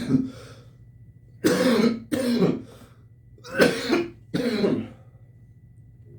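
A man coughing: a short cough right at the start, then two pairs of hard coughs about two seconds apart.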